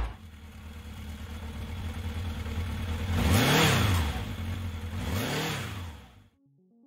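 A motorcycle engine running steadily, revved up and back down twice, about three and five seconds in, then cutting off shortly before the end.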